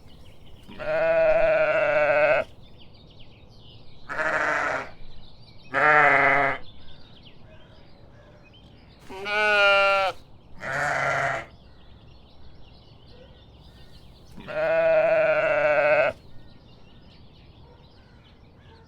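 Sheep bleating: six separate bleats spread through the stretch. The one a little past the middle wavers noticeably in pitch.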